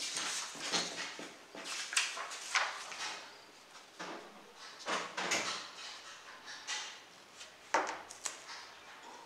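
Sheets of printer paper rustling and sliding over a wooden tabletop as they are moved and lined up, in several short irregular bursts.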